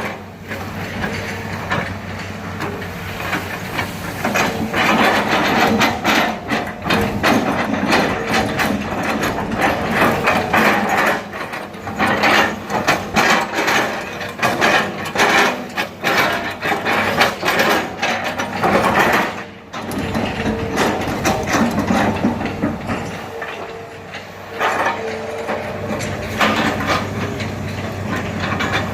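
Hitachi hydraulic excavator at work: its diesel engine running with a steady low hum under a dense clatter of knocks and cracks from its tracks and the wood it is handling, dropping away briefly about two-thirds of the way through.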